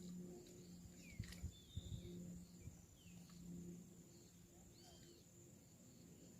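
Faint outdoor ambience: several short bird chirps and whistles over a steady high-pitched insect buzz, with a few soft low knocks about a second or two in.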